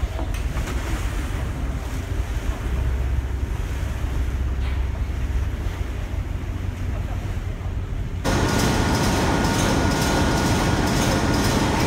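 Wind buffeting the microphone over water, with a boat's engine rumbling low. About eight seconds in, it cuts to the louder, dense noise of a container ship's engine room, with its main diesel engine running and a steady high whine over it.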